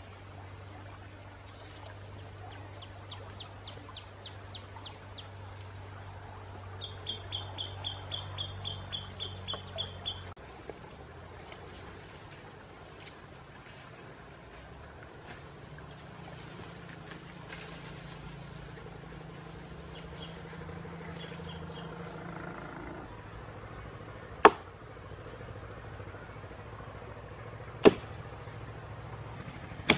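Woodland ambience with insects chirping in two rapid high trains of about four chirps a second, over a faint steady low hum. Near the end come two sharp knocks about three seconds apart.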